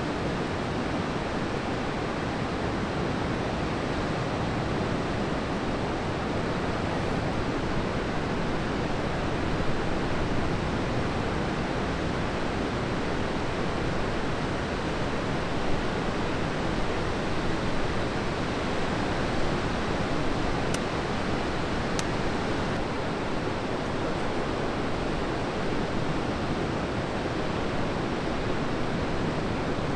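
Ocean surf from a big swell breaking on the beach, a steady even rush of white noise. Two brief faint clicks come about two-thirds of the way through.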